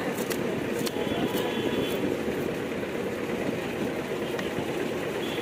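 Kitchen knife chopping fresh coriander on a wooden board: a few sharp, irregular taps in the first couple of seconds, fewer after. Underneath, a steady hum of street traffic.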